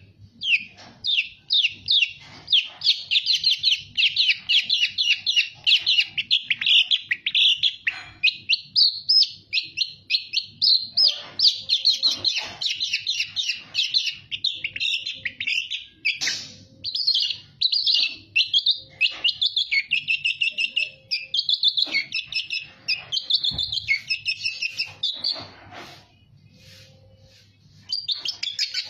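Long-tailed shrike singing a loud, varied song of rapid chattering notes, run together with short gaps and mixing in imitations of other birds' calls. There is a brief pause near the end, then it starts again.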